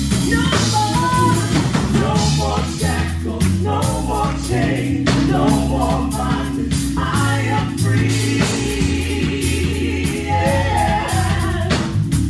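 Gospel praise music: singing over a band with a drum kit beating steadily and sustained bass notes underneath.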